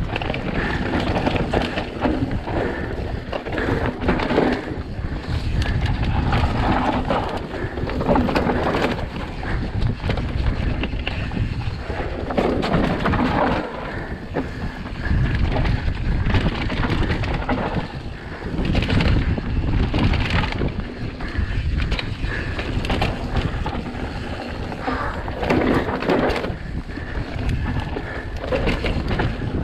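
Mountain bike descending a rough dirt and rock trail at speed: tyres rumbling over loose ground, the bike rattling and clattering over bumps, with wind buffeting the microphone. The noise surges and eases every second or two as the trail's terrain changes.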